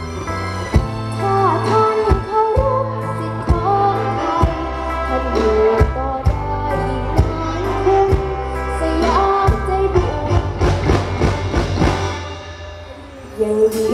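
Band music with a singer, over a regular drum beat and bass. The music drops quieter about twelve seconds in, then picks up again near the end.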